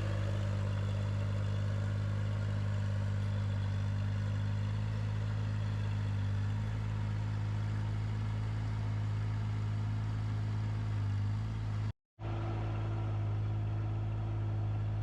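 Engine of an ASV mini tracked skid steer running steadily at a constant low pitch, briefly cut off about twelve seconds in.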